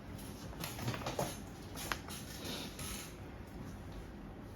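Playing cards handled on a table: a few light taps and soft rustling as cards are placed and slid.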